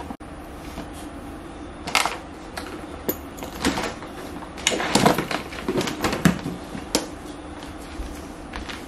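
Scattered sharp clicks and knocks, bunched into a burst of clatter around five to six seconds in, over a steady low hum.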